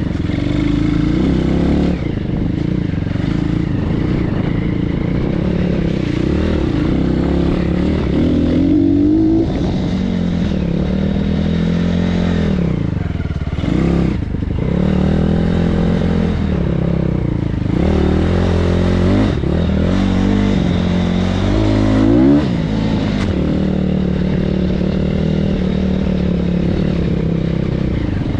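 BSE PH 150 pit bike's single-cylinder engine running under way, its revs rising and falling again and again as the throttle is opened and closed, with dips where it drops back before pulling up again.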